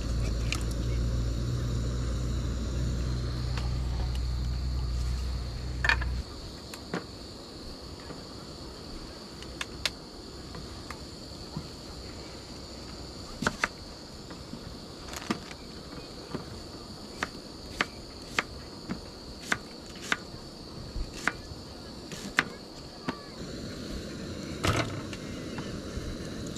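Kitchen knife cutting through an onion onto a wooden cutting board: sharp knocks, roughly one a second and quicker in the middle, over steady chirping of insects. A low steady rumble fills the first six seconds, then stops.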